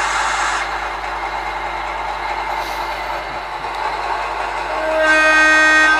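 Digitrains sound decoder in an OO-gauge Bachmann Class 108 DMU model playing diesel engine idling through the model's small speaker. A hiss cuts off about half a second in, and a horn sounds steadily for about a second near the end.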